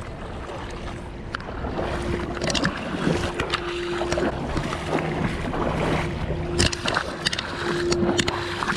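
River water running and wind on the microphone, with a faint steady hum and a few sharp knocks in the second half.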